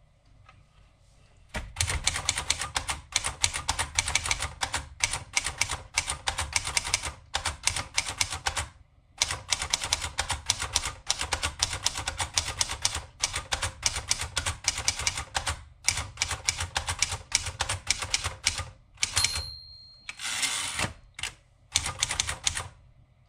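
1953 Empire Aristocrat portable typewriter being typed on quickly, a rapid run of keystroke clacks starting about a second and a half in, with a few short pauses. Near the end a bell rings once, then a short rasping sweep.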